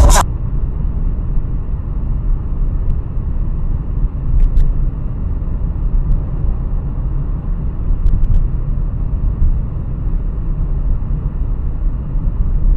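Steady low rumble of a car driving at highway speed, heard from inside the cabin through a dashcam's microphone, with a couple of faint clicks.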